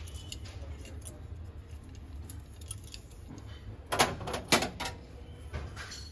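Small metal objects clinking and knocking as they are handled: light clicks, then two sharper knocks about four seconds in, over a low steady hum.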